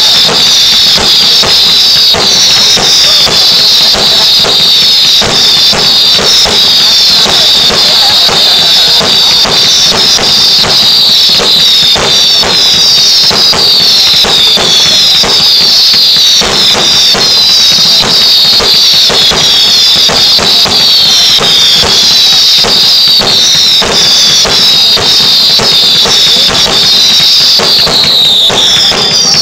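Fireworks going off at close range: a continuous barrage of bangs and crackles with a string of falling whistles repeating about once or twice a second, very loud throughout.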